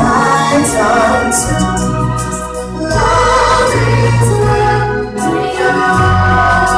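Live stage-show music: a choir singing over loud accompaniment with a deep bass line that changes notes a few times.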